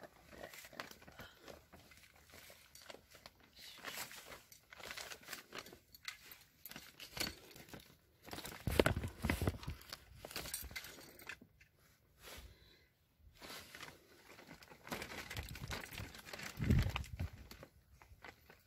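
Plastic tarp rustling and crinkling as it is handled, with two dull bumps, about nine seconds in and again near the end.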